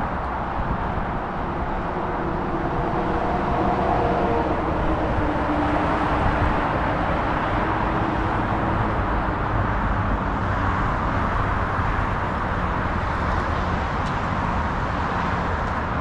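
Continuous motorway traffic: cars and other vehicles passing steadily below, their tyre and engine noise blending into one even rush, with a single engine tone standing out briefly a few seconds in.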